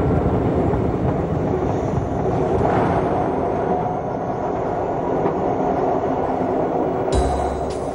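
Train running along the track: a steady rumble and rattle of wheels on rails. About seven seconds in, music starts over it.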